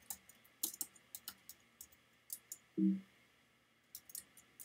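Keystrokes on a computer keyboard, typed irregularly in small clusters, with a brief vocal hum a little under three seconds in.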